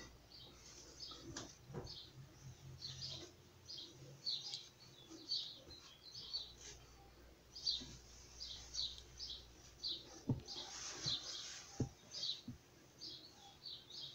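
Small birds chirping repeatedly in the background, short high chirps about twice a second, with a few soft knocks and rustles from cotton underwear being folded by hand on a wooden tabletop.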